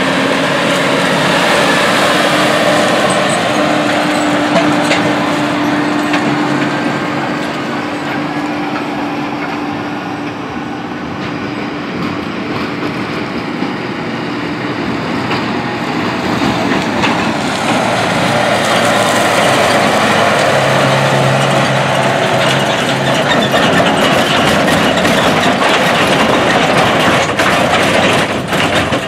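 John Deere 8600 self-propelled forage harvester running under load while chopping standing corn for silage, with a steady engine drone. It eases off a little midway and then builds again as the machine comes closer.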